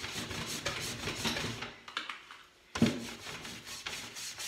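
Wax brush scrubbing clear furniture wax onto chalk-painted wood in quick repeated strokes. The strokes pause briefly about two seconds in, then a sharp thump, the loudest sound, starts them again.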